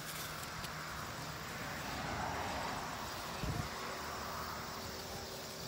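Fig leaves rustling as a hand reaches among them and picks a ripe fig, over a steady outdoor background hiss. A single soft knock about three and a half seconds in.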